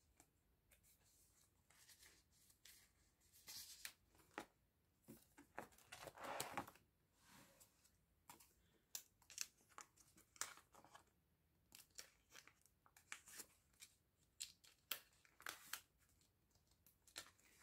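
Faint crinkling, rustling and small clicks of plastic card sleeves and binder pages being handled, with a longer rustle about six seconds in.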